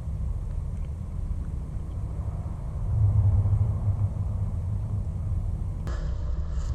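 Low, steady rumble resonating inside a concrete drain tunnel, swelling about three seconds in. Fainter, higher scuffing sounds come in suddenly near the end.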